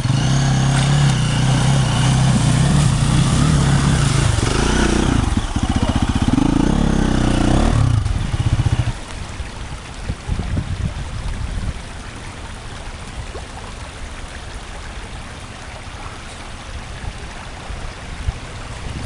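Trail motorcycle engine running hard, its pitch rising and falling with the throttle for about eight seconds. It then drops to a much quieter, uneven low rumble.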